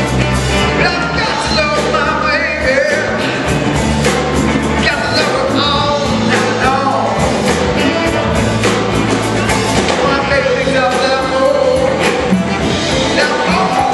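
Live rock and roll band playing: electric guitar, drums and saxophone, with a man singing over them.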